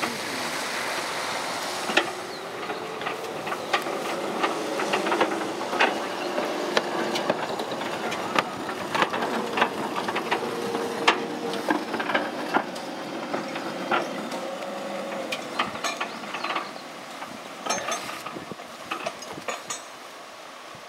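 Small electric mine locomotive running slowly on narrow-gauge track: a faint steady motor-and-gear whine under irregular clicks and clanks of wheels and running gear on the rails, thinning out near the end.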